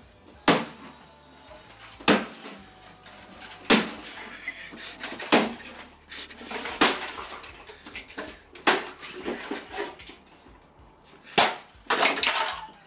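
Trainers landing hard on a coiled guitar cable on a stone-tiled floor as someone jumps on it repeatedly: about eight heavy thuds, roughly one every one and a half seconds.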